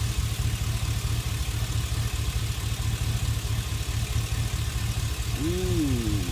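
Chevy Express V8 idling steadily and evenly with no misfire: the cylinder 1 misfire was a loose connection at the fuel injector plug, now reconnected.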